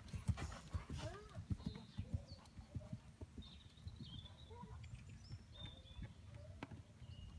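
Hoofbeats of a ridden horse cantering on a sand arena: dull thuds, loudest in the first second or two, then fainter as the horse moves away.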